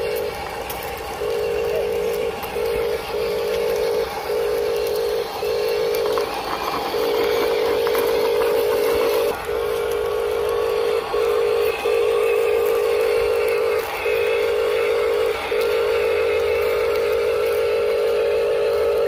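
Electric drive motor and gearbox of a Huina 1573 RC dump truck, a steady whine that cuts out and starts again more than a dozen times as the throttle is applied and released in short bursts.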